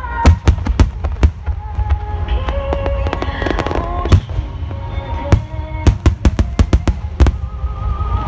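Aerial fireworks bursting in quick succession, sharp bangs and cracks over a deep rumble, with the bursts coming several a second for a stretch about five seconds in. Music with a sustained melody plays through loudspeakers underneath.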